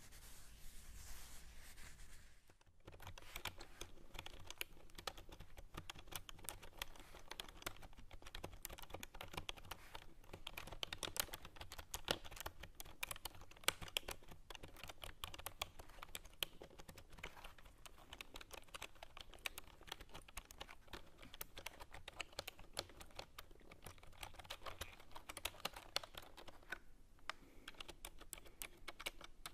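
Fast, irregular clicking like typing on a computer keyboard, made as an ASMR trigger. It starts after a short break about two and a half seconds in, with a few louder clicks among the run.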